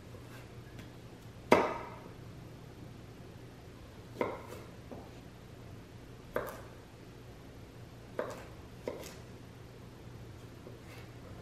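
Santoku knife cutting carrot and cucumber into sticks on a bamboo cutting board: about five sharp, separate knocks of the blade meeting the board, a couple of seconds apart, the first one the loudest, with a few faint taps between.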